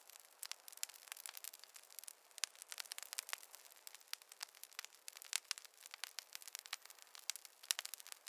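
Wood fire crackling: a dense run of irregular sharp pops and snaps over a faint hiss, without any low rumble.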